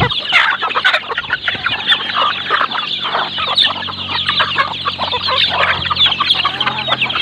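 A flock of chickens, hens and roosters together, clucking all at once as they crowd around their feed, many short calls overlapping continuously.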